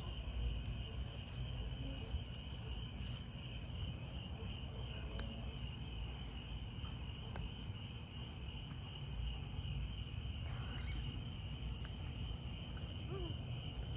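Crickets chirping in a steady, continuous night chorus, over a low steady rumble.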